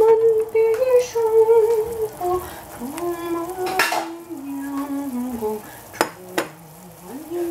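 A woman humming a slow tune, long held notes stepping down in pitch, with sharp clinks of kitchenware: one about four seconds in and two more about six seconds in.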